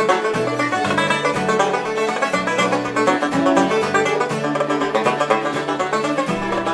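Banjo, fiddle and acoustic guitar playing a tune together, the banjo picking quick, even notes over the guitar's accompaniment.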